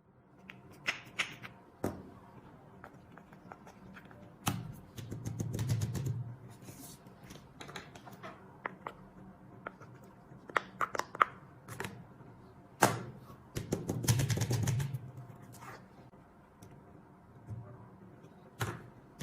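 Fidget toys being handled: an irregular string of sharp clicks and taps, broken by a few longer, duller stretches of handling noise.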